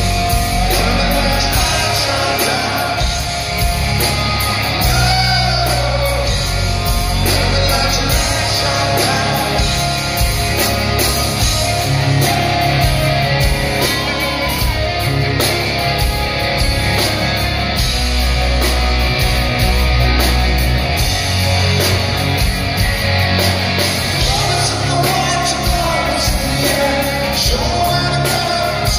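Live rock band playing loudly, electric guitars and drums with a sung lead vocal, recorded on a phone from within the crowd in a large hall.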